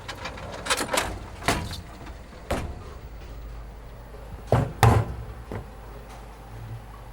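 A series of knocks and bangs over a steady low hum: a few about a second in, one more a second later, and the loudest two in quick succession a little past the middle.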